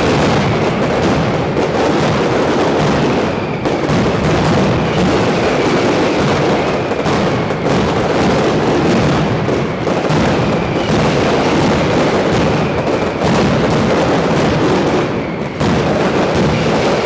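Mascletà: firecrackers going off in a dense, unbroken barrage of rapid bangs, with only brief lulls.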